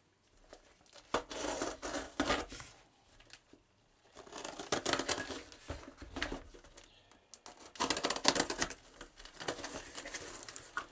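Packing tape on a cardboard box being slit with a knife and torn away, crackling and tearing in three spells of a few seconds each, with sharp scratchy clicks.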